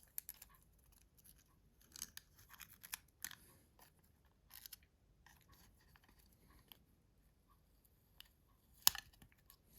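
Faint, irregular scratching and small clicks of a tool working a flex cable loose inside a mobile phone, with a sharper click near the end.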